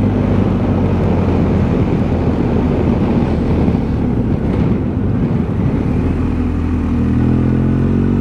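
BMW R1250 motorcycle's boxer-twin engine running steadily at low speed, with road and wind noise. About seven seconds in, the engine note rises as the bike accelerates.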